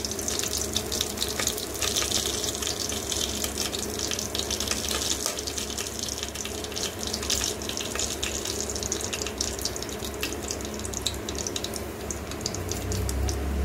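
Whole spices (cumin seeds, bay leaf, cinnamon, cloves) sizzling in hot oil in an aluminium pressure cooker, a steady hiss with many fine crackles, busiest in the first half. A low steady hum runs underneath.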